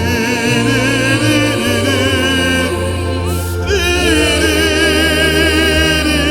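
Gospel worship music: long held, wavering sung or keyboard tones that glide between notes over steady low bass notes.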